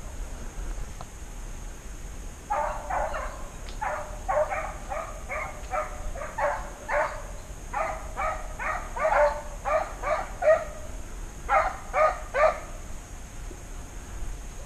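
Hunting hounds barking over and over, about two barks a second, starting a couple of seconds in, with a short pause before a last run of three barks near the end.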